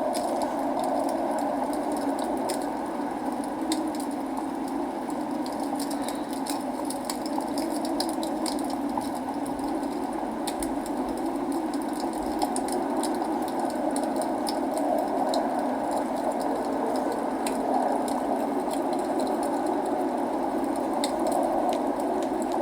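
Wood fire crackling with frequent small pops, over a steady hiss of rain.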